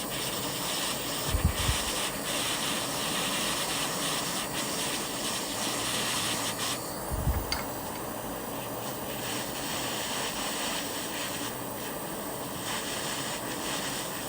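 Jeweller's soldering torch flame hissing steadily as it heats a ring's solder joint until the solder flows. Two short low thumps, one near the start and one about halfway.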